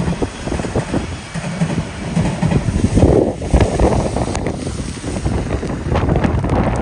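Typhoon wind gusting hard across the microphone, a loud, uneven buffeting rumble that swells about three seconds in.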